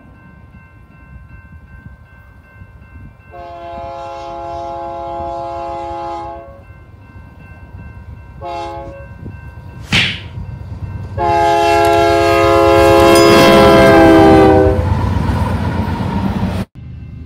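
Freight train's diesel locomotive sounding its air horn, a chord of several tones: a long blast, a short one, then a loud long blast as it comes close. Together with a long blast just before, this is the long-long-short-long grade-crossing signal. The rumble of the locomotive and train builds under the last blast, with a sharp thump just before it, and the sound cuts off abruptly near the end.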